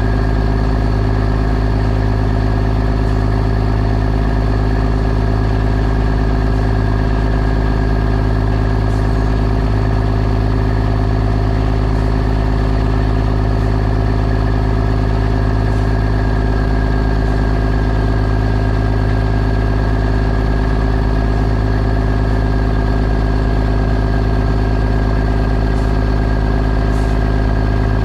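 Heavy diesel engine running at a steady speed, a constant low drone with an even higher-pitched whine over it.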